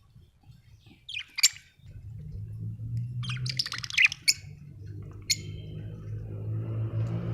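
Budgerigars chirping in short bursts: a brief call about a second in, a longer run of chattering chirps around three to four seconds, and a single chirp a little after five seconds. A steady low hum starts about two seconds in and runs underneath.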